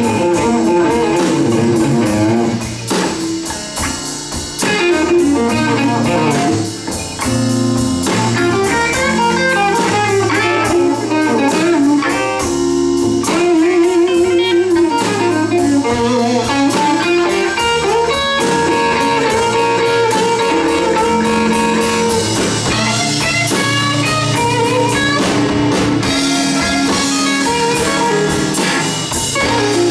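Live electric blues band playing an instrumental passage: electric guitar lead lines with bent, vibrato-shaken notes over bass guitar and drum kit.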